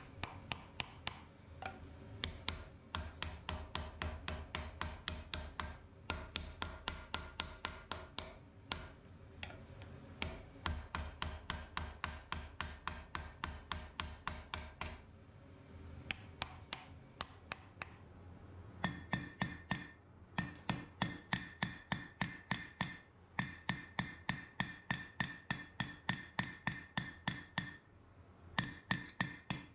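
Blacksmith's hand hammer forging a red-hot steel spearhead on an anvil: quick, steady blows, a few a second, each with a metallic ring. The blows come in runs, with a pause of a few seconds about halfway and a brief one near the end, and the ring goes higher in the second half.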